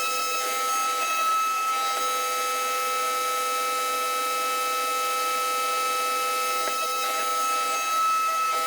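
Table-mounted wood router running steadily with a constant whine, cutting a tapered truss rod slot in a mandolin neck blank.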